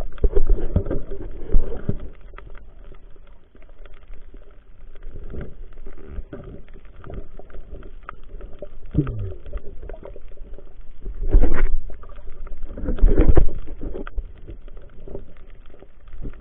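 Muffled underwater water noise picked up by a diver's hand-held camera, with small knocks, a short falling tone about nine seconds in, and two louder rushes of water about eleven and thirteen seconds in.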